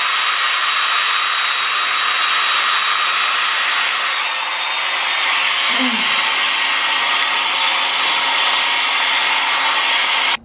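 Handheld hair dryer running steadily on its cool-air setting, a rush of air with a thin high whine, then switched off abruptly at the very end.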